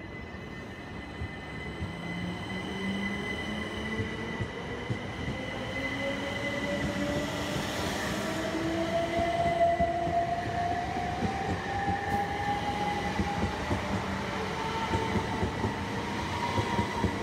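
Class 377 electric multiple unit pulling away from the platform and accelerating. Its traction motors whine, climbing steadily in pitch, over a steady high tone, while the rumble of wheels on rail grows louder.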